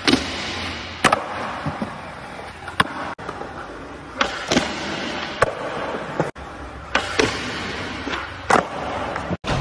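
Skateboard wheels rolling on smooth concrete, broken by about nine sharp clacks of the tail popping and the board landing. The sound cuts out briefly three times.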